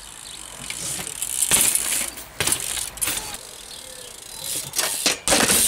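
BMX bike on a concrete ledge: the tyres scrape and hiss on the concrete, with a few sharp knocks as the wheels come down onto it, and the loudest impact near the end. The rear hub's freewheel ratchet clicks as the bike coasts.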